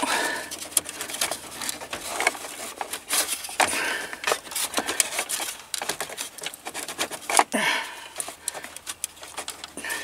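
A power-outlet socket and its metal dash bracket being worked by hand: irregular clicks, scrapes and rattles of metal and plastic as the socket is twisted to free it.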